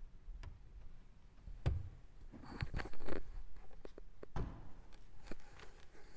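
Footsteps, rustling cloth and scattered knocks as a person walks across a wooden floor and sits down in a wooden chair, with the loudest knocks about three seconds in.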